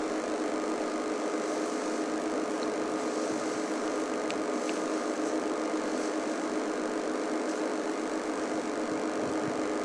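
A steady mechanical hum, like an idling engine, with a few faint ticks.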